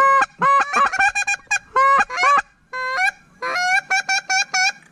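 Handheld waterfowl call blown close by, giving loud honking notes in quick clusters: a burst at the start, a run of notes, a short pause, then a rapid even series of about five notes near the end, calling to birds in flight.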